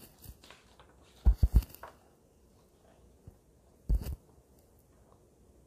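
Hardcover picture book being handled: three quick knocks a little over a second in, then a page turned about four seconds in.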